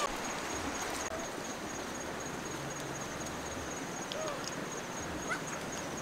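Rural outdoor ambience: a steady hiss with a faint, high, pulsing insect trill and a few faint short chirps.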